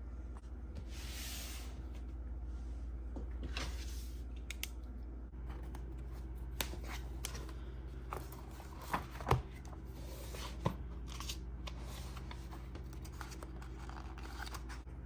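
Handling sounds, likely paper or sticker sheets: scattered light clicks and a short rustle about a second in, over a steady low hum.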